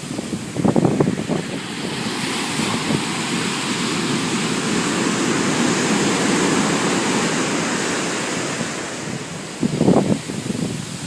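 Pacific Ocean surf: a wave swells into a loud rushing hiss over several seconds and then fades as it washes back. Wind buffets the microphone in low rumbling gusts about a second in and again near the end.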